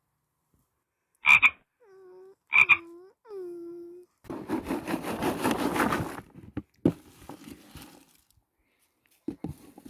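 Three low, frog-like croaks, each curving in pitch; the first two are preceded by a sharp click. A couple of seconds of rustling noise follows, then a few scattered clicks near the end.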